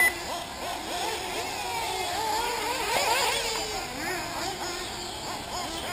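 1/8-scale nitro RC buggy engines revving up and down, several high-pitched whines overlapping as the buggies race, with a sharp click right at the start.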